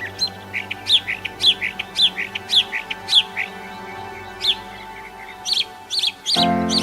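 A small bird chirping: a series of short, sharply falling chirps about two a second, then a quicker cluster of chirps near the end. Soft background music with sustained chords plays underneath and swells into a new chord near the end.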